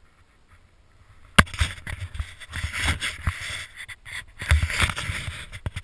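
Skis hissing and scraping through powder snow as the rider sets off downhill. It starts suddenly about a second and a half in, then surges and fades irregularly with each turn.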